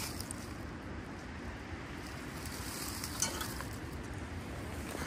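Dry leaf litter crackling and rustling as a gloved hand moves pieces of aluminium aircraft wreckage, with a brief tap a little past halfway.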